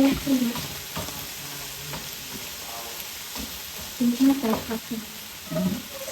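Food sizzling and frying in a pan with a steady hiss, with light stirring clicks. Brief bits of a voice come through near the start and again around four seconds in.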